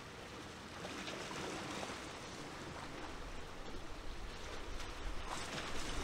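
Small waves washing at the shoreline: a steady watery hiss that swells and grows more uneven near the end.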